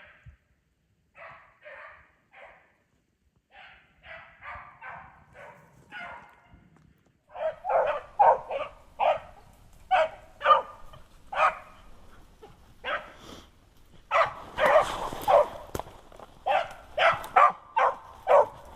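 Pack of hunting beagles baying on a rabbit chase: faint and far off at first, then much louder and closer from about seven seconds in, with several dogs giving tongue at once near the end.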